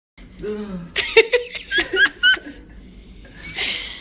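People laughing: a run of quick, high-pitched giggles about a second in, then a short breathy hiss near the end.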